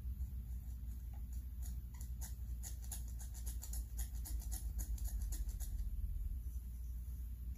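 A quick run of small, sharp clicks and scratches, about five or six a second, from hands working on a Homelite 27AV chainsaw's fuel lines and carburetor. It starts about a second in and stops a little before the end, over a steady low hum.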